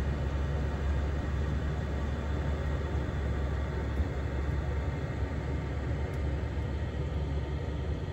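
Yamaha Wolverine R-Spec side-by-side running, a steady low rumble of engine and drivetrain with an even rushing noise over it, heard from in the cab.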